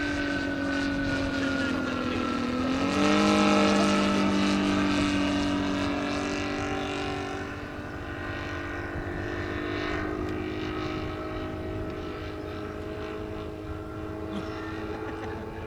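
The Saito FG-90R3 three-cylinder four-stroke gasoline radial engine of a large radio-control biplane running with its propeller. The engine note dips and then rises about three seconds in, is loudest just after, and then holds steady and a little quieter.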